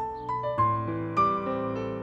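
Soft piano background music: a slow melody of single struck notes, one every half second or so, over held lower notes.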